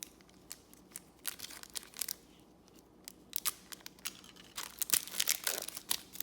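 Trading cards and a foil pack wrapper being handled: a run of short crinkles and sharp card snaps, growing busier in the second half.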